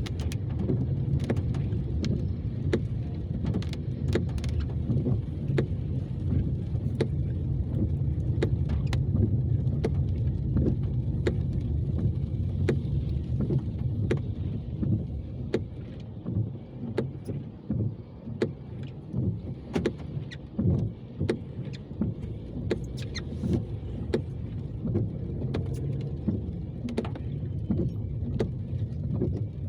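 Steady low road and engine rumble of a moving car, heard from inside, with many irregular sharp taps scattered through it. The rumble eases and turns uneven about halfway through.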